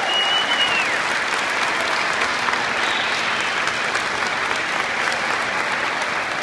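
Audience applauding steadily after a choir's final note. A single high held note glides down and stops about a second in.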